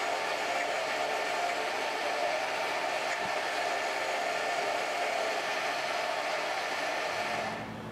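Small benchtop metal lathe running, its motor and gear train giving a steady whir while a brass rod is turned down. The lathe shuts off near the end.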